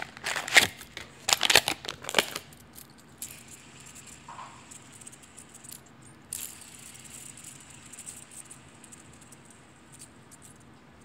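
Fidget spinner handled and flicked close to the microphone, with a quick run of loud clattering clicks over the first couple of seconds, then spinning with a faint steady whir.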